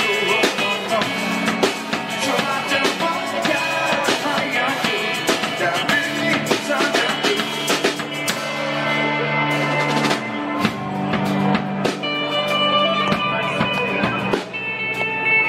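Band playing live on drum kit and electric guitars, with a singer on a handheld microphone.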